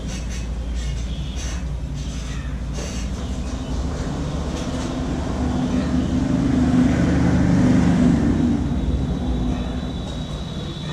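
Road traffic: a steady low rumble of engines, swelling as a vehicle passes in the middle and easing off near the end. A few short sharp taps come in the first three seconds.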